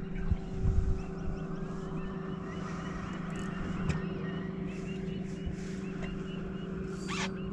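Boat motor running with a steady low hum, with a few low thumps in the first second and a brief hiss near the end.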